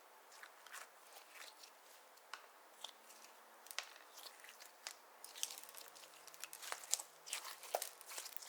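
Clear slime being squished and stretched by hand as eyeshadow is mixed in, giving sticky clicks and small pops. The clicks are sparse at first and come thicker and louder from about halfway through.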